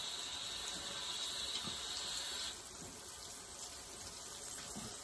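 Cassava pieces frying in hot oil in a frying pan: a steady sizzle, whose higher hiss drops away about two and a half seconds in.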